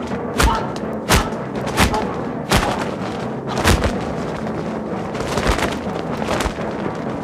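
Dubbed kung-fu fight sound effects: about seven sharp punch-and-kick hits, the first few roughly 0.7 s apart and the later ones more spread out, over a steady background music score.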